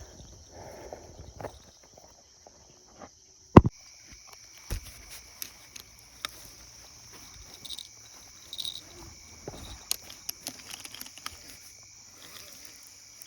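A steady high chorus of chirring insects, with scattered small clicks and knocks and one sharp knock about three and a half seconds in.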